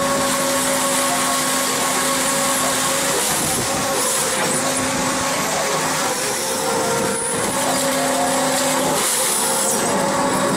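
A scallop dredging boat's engine and deck machinery running, a steady mechanical hum with a few held tones that drop out for a few seconds in the middle, over continuous broad rushing noise.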